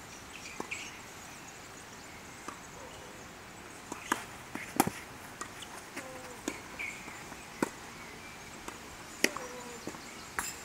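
Tennis ball struck back and forth by rackets in a rally on a grass court: sharp hits and bounces every second or so, the loudest about five seconds in.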